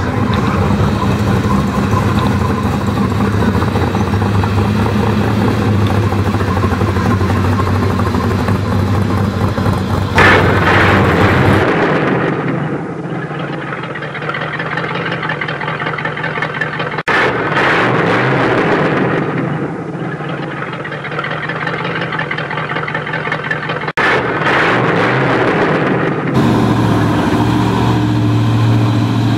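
Big muscle-car V8 engines running as the cars drive slowly past. A steady low rumble gives way to a sharp rev about ten seconds in, then engines rev up and die away twice, and a steady low rumble returns near the end.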